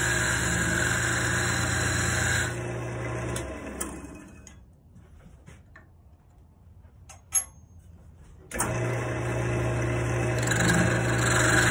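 Wood lathe motor running steadily, then winding down over about two seconds to a quiet stretch with a few light clicks and one sharp tap. The lathe's hum comes back abruptly near the end.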